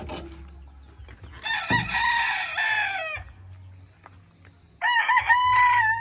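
Two game roosters' crows, each held for about a second and a half to two seconds and ending in a falling note; the second, about five seconds in, is louder.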